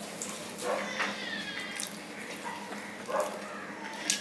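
Soft, wet mouth sounds of rice and curry being eaten by hand: faint smacking and chewing, with a sharp click just before the end.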